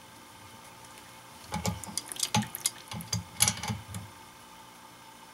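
Irregular light metallic clinks and knocks from taking the handle off a brass ball valve. They start about a second and a half in and stop about a second before the end.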